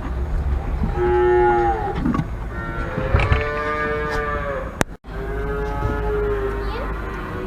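Dairy calves bawling: several long, arching calls one after another, some overlapping at different pitches, over a low wind rumble on the microphone.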